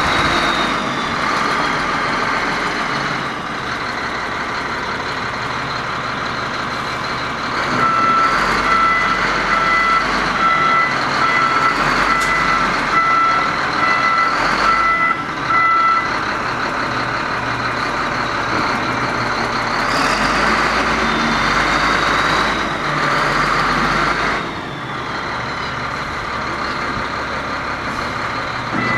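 WOLF WL500 wheel loader's six-cylinder diesel engine (Shangchai-built CAT 3306B) running as the loader drives and manoeuvres. Its reversing alarm beeps steadily for several seconds in the middle and starts again at the very end.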